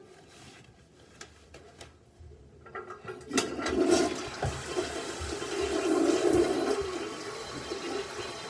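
Toilet flushing: a sudden rush of water about three seconds in that runs on and eases to a quieter flow near the end. A few faint taps come before it.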